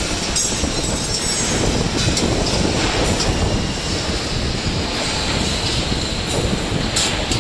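2D CNC wire bending machine feeding and bending steel wire: a steady mechanical din with a few sharp clicks.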